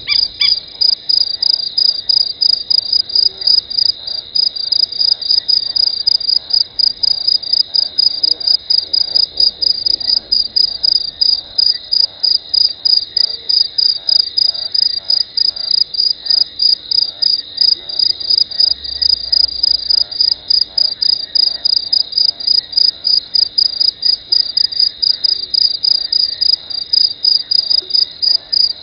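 A calling insect, cricket-like, singing close to the microphone: a loud, high-pitched chirp repeated evenly about three or four times a second without a break.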